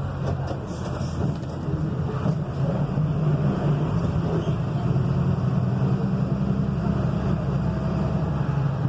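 Volkswagen 17.210 truck's diesel engine running steadily, with a low hum throughout and a slight rise in level about three seconds in.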